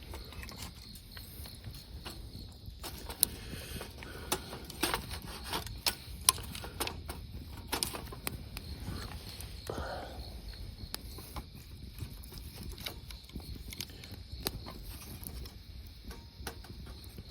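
Wood campfire crackling, with irregular sharp pops, the loudest a few seconds in, over a low steady rumble.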